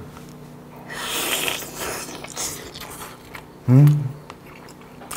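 A person eating braised pork back bone, biting and pulling the meat off the bone and chewing, with scattered small wet clicks. A short, loud, low hum of a closed-mouth "mm" comes just under four seconds in.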